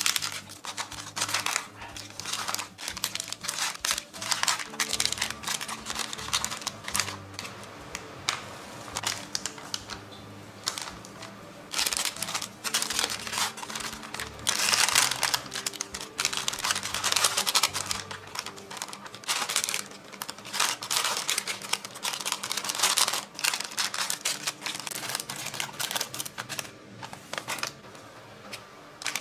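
Plastic snack wrappers crinkling and rustling in irregular bursts as the wrapped snacks are handled and packed into a folded paper box, over soft background music.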